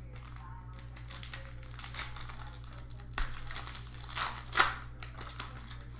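Plastic foil trading-card pack wrapper crinkling as it is handled and torn open, with a sharp crackle about three seconds in and a louder one a little after four seconds.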